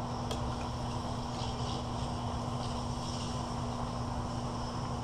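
Steady low room hum with a constant faint tone, one light clink of cutlery on a plate just after the start, and faint high chirps in the middle.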